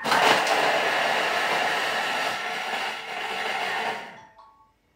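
Thermomix food processor chopping garlic, fresh herbs, carrot, capsicum and red onion, its blades spinning at high speed for about four seconds. It starts abruptly and dies away as the blades stop.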